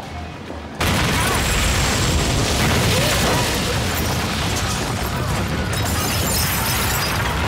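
A sudden loud explosion about a second in, followed by sustained noise of the blast and fire.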